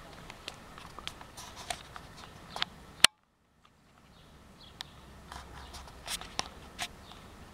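Footsteps and the rustle of leaves and stems as someone pushes through tall undergrowth, with scattered sharp snaps and clicks. About three seconds in, a loud click is followed by the sound cutting out completely for about a second before the rustling resumes.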